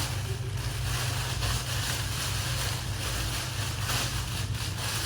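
Steady background hiss with a low hum underneath, with no clear event standing out.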